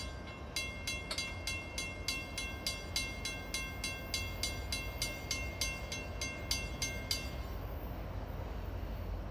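Railroad crossing warning bell ringing in rapid, even strokes, about three a second, signalling an approaching train. It stops about seven seconds in, as the crossing gate comes down. A low steady rumble runs underneath.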